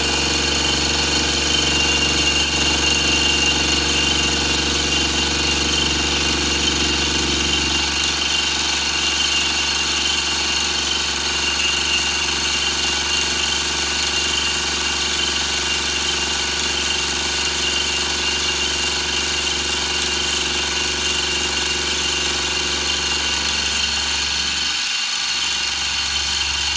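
Small milling machine running steadily with a fly cutter taking a light finishing cut of one or two thousandths across a metal face: a constant hum with several steady high whining tones.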